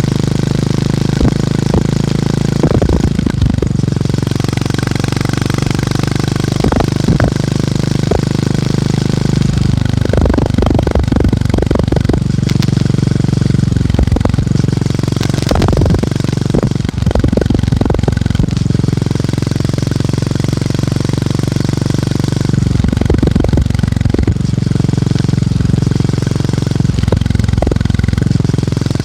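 Motorcycle engine and exhaust thumping at low revs while riding, the beat shifting in pitch several times as the speed changes. Clusters of rattling clicks come and go over it.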